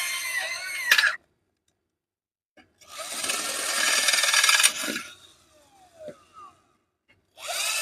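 Electric drill boring holes in a metal base frame, run in bursts: the motor whine stops about a second in, runs again for about two seconds, and spins up once more near the end with its pitch rising.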